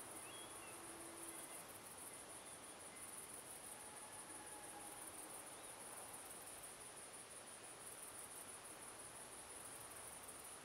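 Faint, steady, high-pitched chirring of insects.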